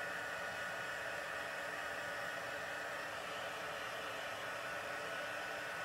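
Craft heat tool running steadily, blowing hot air over wet watercolor paper to dry it before stamping. It makes an even rushing hiss with a thin, steady high whine.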